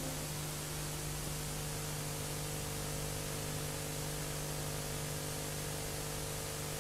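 Steady hiss with a low, constant hum: the background noise of the recording itself, with no other sound.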